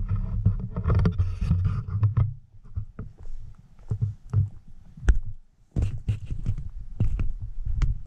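Walking footsteps on a dirt forest trail, short crunching knocks about twice a second. Under them is a low rumble of handling noise on the camera microphone, heaviest in the first two seconds and again near the end.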